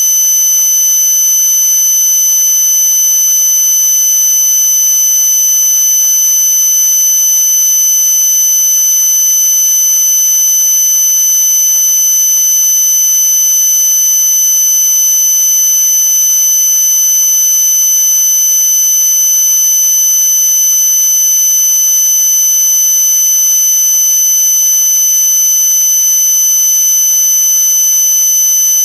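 A continuous piercing high-pitched tone, like a buzzer, held without any break or change over a steady hiss. No engine running is heard.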